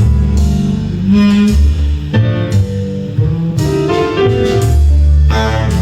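Recorded music with guitar and deep bass notes playing through a multi-driver speaker system of horn speakers, two woofers and three tweeters wired together.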